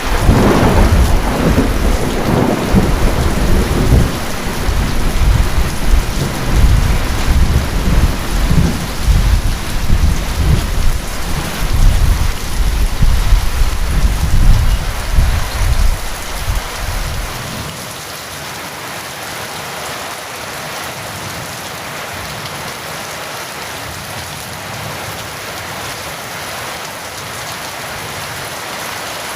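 Steady heavy rain with a clap of thunder right at the start; the thunder rumbles on low and loud, then fades out a little over halfway, leaving only the even hiss of the rain.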